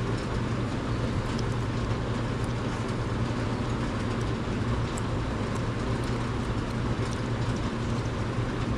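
Steady low hum with an even hiss from a running machine, with a few faint small ticks.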